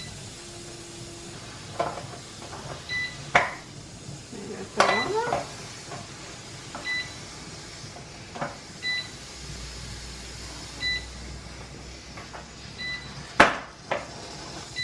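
Presto digital pressure canner beeping briefly about every two seconds, its prompt to put the pressure regulator on the vent. Sharp clicks and knocks as the regulator and lid are handled, the loudest near the end.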